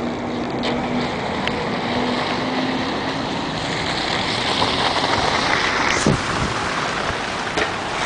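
City street ambience after a heavy snowfall: a steady rush of traffic on slushy pavement and wind on the microphone, swelling around the middle. A sharp knock comes about six seconds in.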